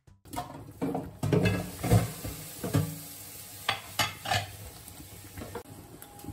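Clinks and knocks of utensils against a stainless steel cooking pot, a cluster of them between about one and four seconds in, over a faint steady hiss of tomato-based sauce simmering.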